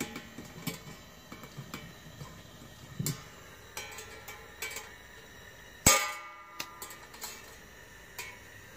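Workzone portable gas heater being lit: a run of irregular clicks from repeated attempts at ignition, with a louder click and a short metallic ring about six seconds in. It is slow to catch.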